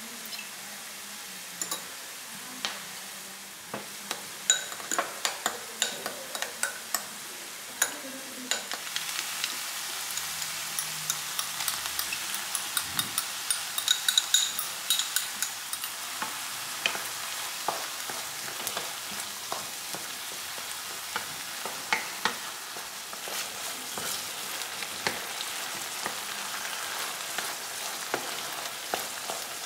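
Ground pork and onion frying in a pan: a steady sizzle, with frequent sharp clicks and scrapes as a spoon and a wooden spatula stir the meat.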